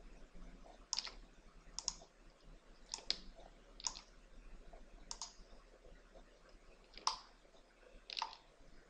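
Computer mouse clicking: about eight sharp clicks at uneven intervals, some in quick pairs.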